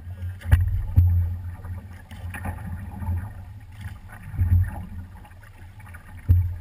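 Paddles stroking and splashing in the water around a big voyageur canoe, over a low wind rumble on the microphone. A few sharp knocks stand out, about half a second and a second in and again near the end.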